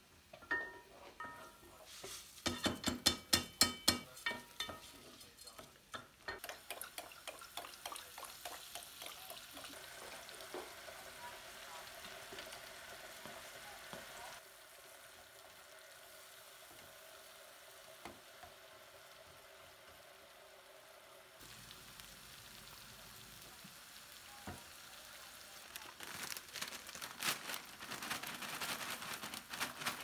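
Food sizzling in a frying pan while it is stirred, a steady hiss that quietens in the middle and builds again. A quick run of sharp knocks about two seconds in and more knocks near the end.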